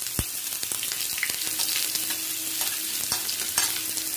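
Chopped onions sizzling in hot refined oil in a non-stick frying pan, with a few light clicks as a steel spoon scrapes more onion off a plate into the pan.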